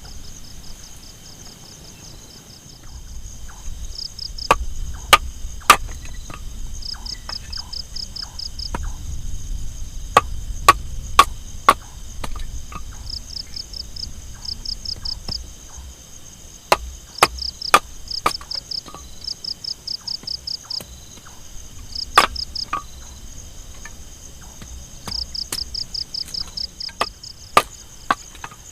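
Insects, crickets among them, calling steadily with short repeated chirping trills, joined by irregular sharp knocks or cracks, some of them loud, over a low rumble.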